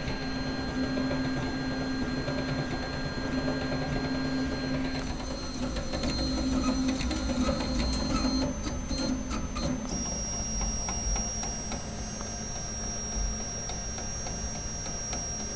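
3D printer's stepper motors running mid-print: a steady whine whose pitch shifts suddenly a couple of times as the moves change, with a run of light ticks about halfway through.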